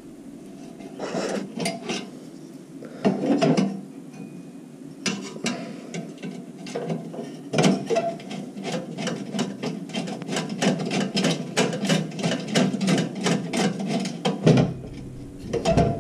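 A screwdriver working a tiny screw into the sheet-metal igniter bracket of a propane heater: scraping, then a quick run of small metal clicks, several a second, from about five seconds in until near the end.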